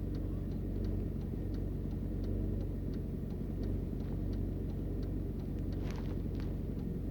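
Car engine idling steadily, with light ticks about two or three times a second over it.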